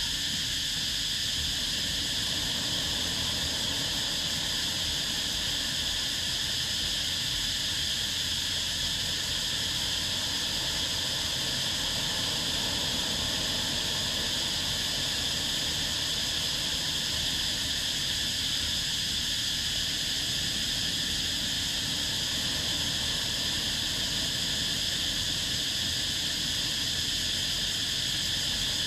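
Steady, high-pitched insect chorus over a low rumble.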